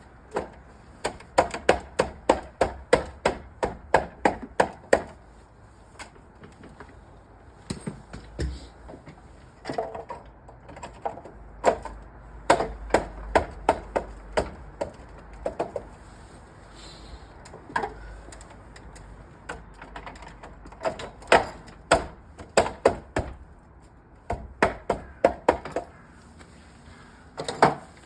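Bursts of rapid, sharp knocks, about three or four a second, separated by short pauses.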